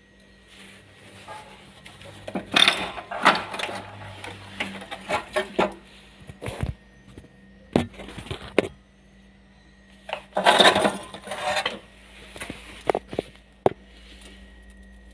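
Metal parts clinking and clattering as they are handled and set down on a hard surface, in irregular bursts with two louder spells, one early and one about two-thirds of the way through.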